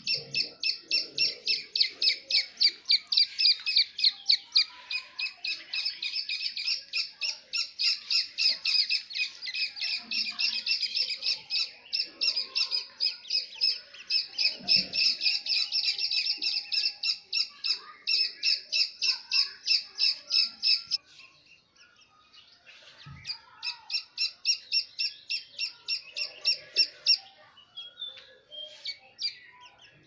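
Grey francolin chicks peeping: a fast, even run of high-pitched peeps, several a second. It stops about two-thirds of the way through, starts again briefly, then thins to scattered peeps near the end.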